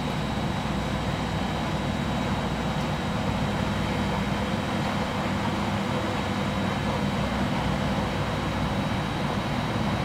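Front-loading laundromat washing machine running, its drum turning a load of laundry: a steady hum and rushing noise with a faint high tone that holds throughout.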